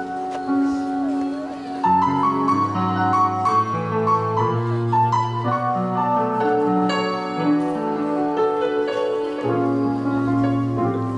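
Yamaha Motif XS7 synthesizer keyboard played live: held chords over a bass line that changes every second or two, filling out and getting louder about two seconds in.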